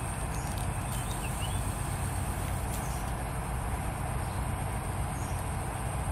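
Steady outdoor background noise with a fluctuating low rumble, typical of wind buffeting the microphone, and a faint steady high whine; a couple of faint short chirps about a second in.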